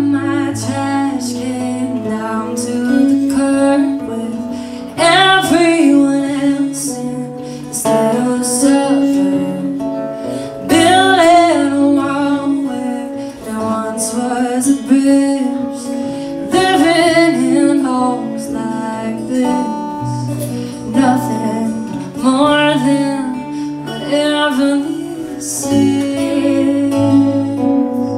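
Live music: two acoustic guitars strummed and picked together, with a woman singing the melody in phrases a few seconds long.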